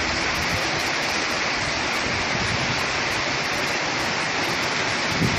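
Heavy downpour of rain: a steady, even hiss of rain falling hard.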